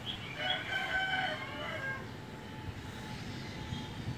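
Steady, distant rumble of a Boeing 787-8 airliner's jet engines as it climbs after takeoff. A bird calls loudly over it for about two seconds near the start.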